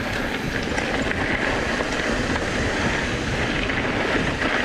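Mountain bike rolling downhill on a loose, shaly dirt trail: a steady rush of tyre noise and wind on the microphone, with light clicks and rattles.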